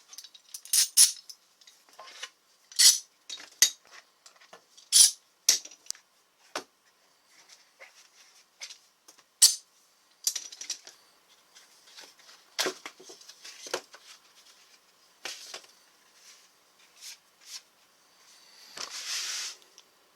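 Irregular sharp clicks and clacks of small hard objects being handled, some much louder than others, with a brief rustle near the end.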